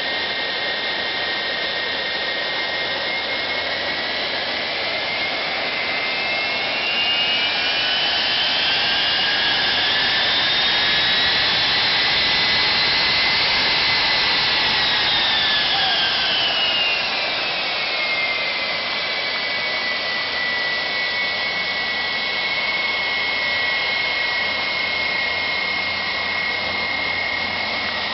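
Jet engine whining, with several close tones over a steady rush. About a quarter of the way in the whine climbs in pitch as the engine spools up, then it winds back down to a steady lower whine.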